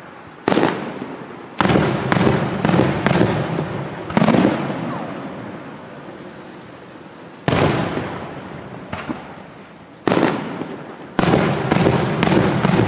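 Aerial fireworks shells bursting overhead. There are a dozen or so sharp bangs, each with a long echoing fade. They come in a quick run over the first few seconds, thin out to single bangs in the middle, and come in another rapid run near the end.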